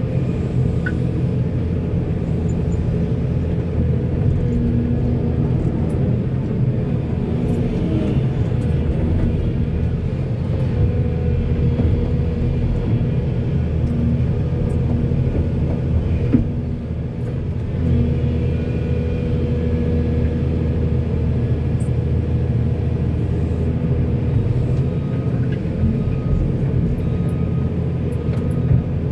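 Diesel engines of a backhoe and dump truck running steadily with a low rumble, a pitched hum rising in and out at times. One sharp knock about sixteen seconds in.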